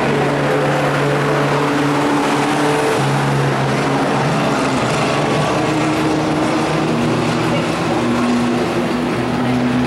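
Race pickup truck's engine running steadily as it circles a dirt oval. Its pitch drops a step about three seconds in, then climbs again near the end.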